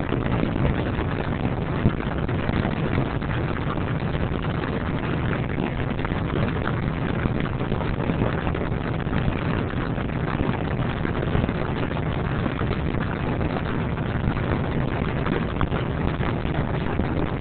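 Steady rain and wind of a thunderstorm, an even noise with no distinct thunderclap standing out.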